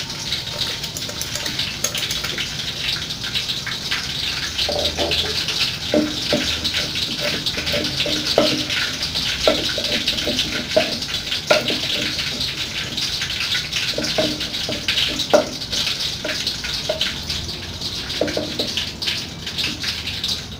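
Wooden pestle pounding in a clay mortar: irregular dull knocks starting about five seconds in, over a steady water-like hiss.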